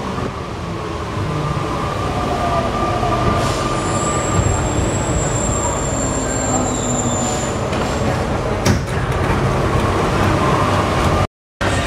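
Alstom NS-93 rubber-tyred metro train running and pulling into a station, heard from inside the car: a steady rumble of the running gear, with a thin high squeal from about four seconds in until about seven and a half, and a sharp click near nine seconds. The sound cuts out for a moment just before the end.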